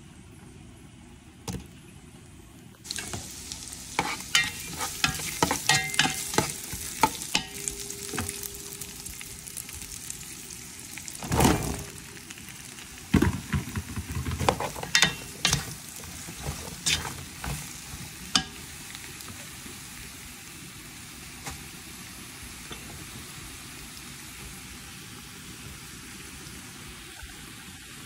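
Onions and sliced yellow squash frying in oil in a nonstick pot: a steady sizzle sets in about three seconds in. Through the middle come many sharp clicks and clatters of stirring in the pot, with one louder rush, and the last third is an even sizzle.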